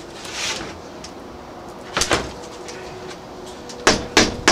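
Knocks and clunks of a vinyl double-pane window sash being handled and stood upright on a cardboard-covered table. A short brushing rustle comes just after the start, a single knock about two seconds in, and several sharp knocks in quick succession near the end.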